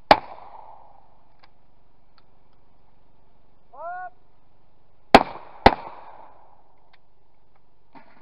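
A shotgun shot just after the start, then a short rising shout about four seconds in, the shooter's call for the clay, followed by two shotgun shots about half a second apart.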